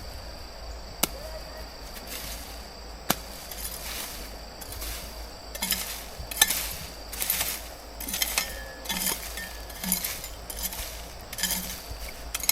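Two sharp knocks, then from about halfway an irregular run of short noisy strokes, roughly two a second, over a faint steady high tone.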